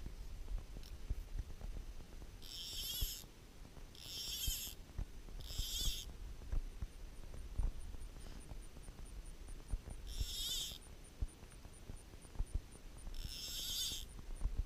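Wind buffeting the microphone with a low, uneven rumble. Five short, high buzzy rasps cut through it, three close together in the first half and two later on. A faint, rapid high ticking joins in the second half.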